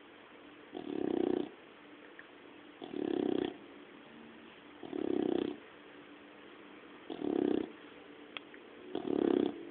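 Sleeping puppy snoring: five snores about two seconds apart, each lasting under a second.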